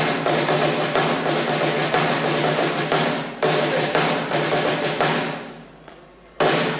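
Live rock band, amplified guitars, bass and drum kit, playing loudly, with a brief break and a fresh hit a little past three seconds in. About five seconds in the playing dies away, and near the end the band strikes one sharp hit together that rings out, the stop-start close of a song.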